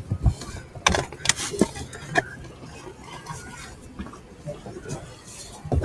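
Handling noise close to the microphone: several sharp knocks and clicks in the first two seconds, then light rustling, and one thump at the end.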